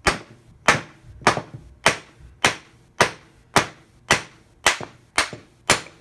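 Wooden mallet striking a wooden bullnose rabbet plane, about eleven sharp, evenly spaced knocks a little under two a second, to drive out the tight-fitting wedge that holds the iron.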